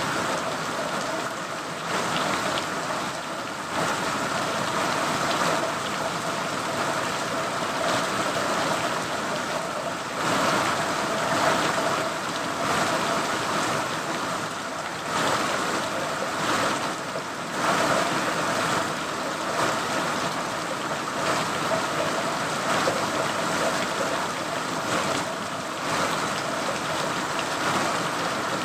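Steady rain falling, a continuous even hiss that swells and eases a little every few seconds.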